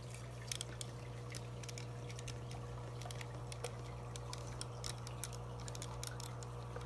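Irregular light clicks and taps of small tools and RC truck parts being handled on a workbench, over a steady low hum.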